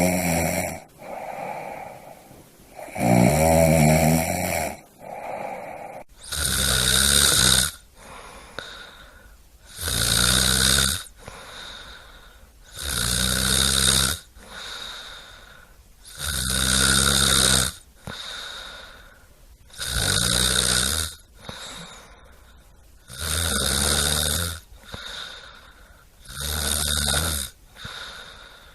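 A sleeping person snoring, with loud snores about every three seconds and quieter breaths between them. About six seconds in, the snoring changes to a hissier kind that carries on for seven more snores.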